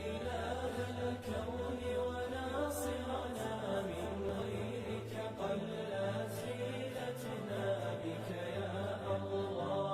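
Background music: an Arabic nasheed, voices chanting a melody over low held notes that change step by step, without words yet.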